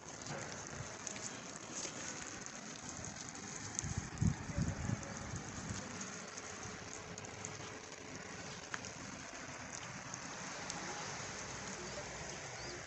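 Light rain falling, an even hiss with scattered ticks of drops. A few low thumps about four seconds in.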